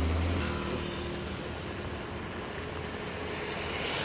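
Road traffic on a waterlogged street: a vehicle engine running with a low hum over a steady hiss of water and tyres, the hiss swelling near the end.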